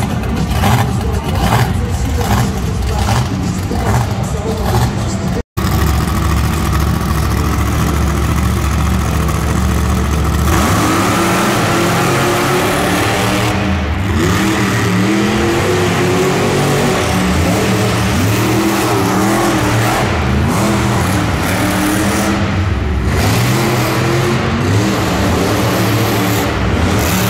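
Monster truck engines revving hard, the pitch rising and falling again and again as the trucks accelerate. The sound cuts out briefly about five seconds in. After that a deep steady rumble gives way, about ten seconds in, to repeated rising and falling revs.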